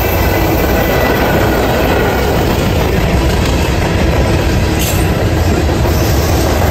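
Freight train of covered hopper cars and tank cars rolling past close by: a loud, steady rumble of steel wheels on the rails.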